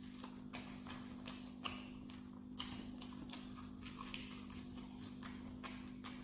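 Close-miked chewing of boiled pork, wet smacking mouth clicks coming irregularly about two or three a second, over a steady low hum.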